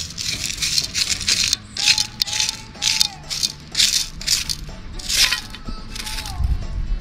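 Small river pebbles rattling in a round metal sieve with a wire-mesh bottom, shaken in short strokes about twice a second to sift sand out through the mesh.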